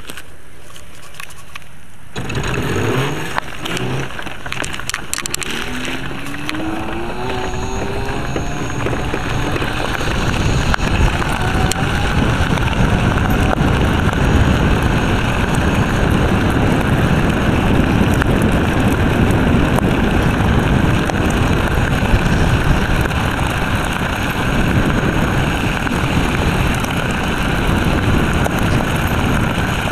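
Electric scooter pulling away: about two seconds in the ride starts, with a rising motor whine as it gathers speed. This gives way to a steady rumble of tyres on a gravel track and wind at cruising speed.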